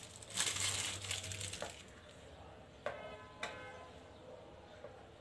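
A plastic piping cone of white gel rustling and crinkling as it is handled, then two short squeaky sounds about half a second apart.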